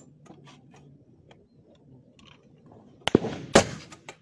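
Two loud gunshots about half a second apart, three seconds in, each with a short ringing tail, after a lull of faint clicks.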